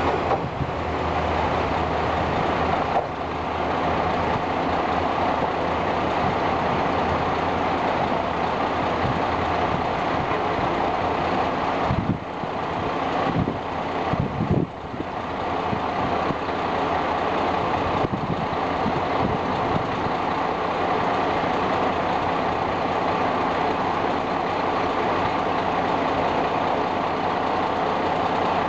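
A diesel engine idling steadily throughout, with a few brief knocks in the middle. At the start, the low sound of a departing diesel railcar fades away within the first seconds.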